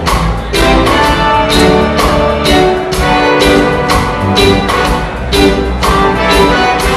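Live reggae band playing a steady beat on drum kit, bass and guitar, recorded from the audience.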